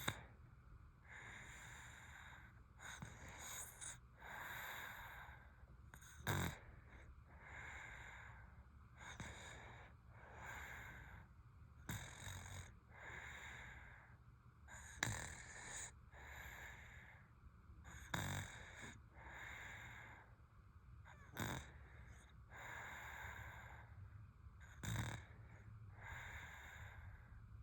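Sleeping baby snoring faintly: quick, hissy breaths about one a second. A sharp click comes every three seconds or so and is the loudest thing heard.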